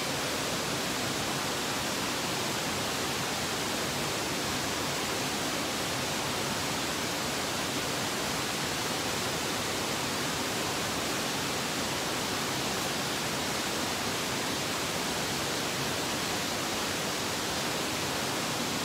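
A steady, even hiss that holds at one level throughout, with no distinct events.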